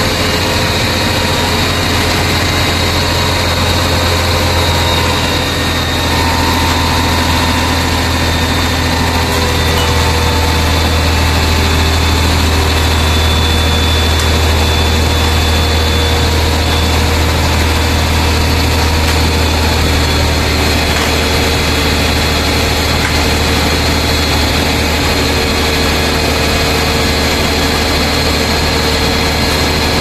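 Concrete mixer truck's diesel engine running steadily as the drum turns to discharge concrete down the chute: a loud, even, low drone.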